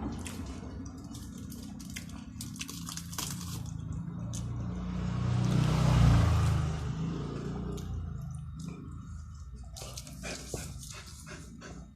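Close-miked eating of chicken curry and rice: wet chewing and mouth sounds with scattered sharp clicks, and a louder swell of noise about halfway through.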